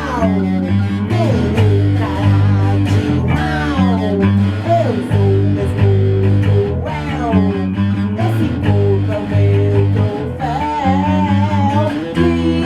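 Rock band playing: electric guitar and bass over a repeating low riff, with a lead line that slides up and down in pitch and wavers near the end.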